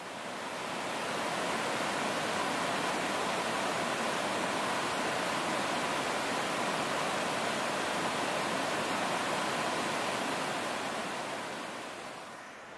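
Mountain stream cascading over rocks: a steady rush of white water that fades in over the first second or so and fades out near the end.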